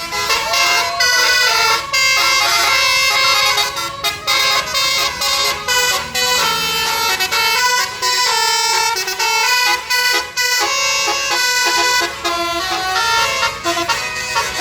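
A bus's basuri musical horn playing a fast multi-note melody, its notes stepping quickly in pitch with brief breaks between phrases.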